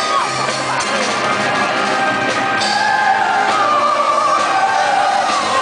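Symphonic metal band playing live, with distorted guitars and drums under a female lead vocal singing long held notes, heard from within the audience.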